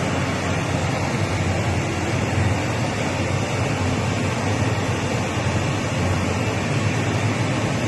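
Steady wash of crashing, tumbling waterfall sound, played back over the loudspeakers of an immersive room, heaviest in the low rumble.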